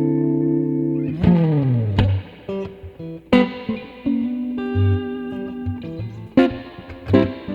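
Electric guitar with Mtone SSS single-coil pickups played with a clean tone: a held chord rings out and fades, a note slides down in pitch about a second in, then a phrase of separately picked notes and chords follows.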